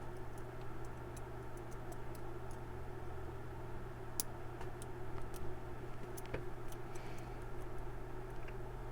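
Faint, irregular metallic ticks and clicks of a lock pick working the pin stack inside a laminated steel padlock, over a steady low hum.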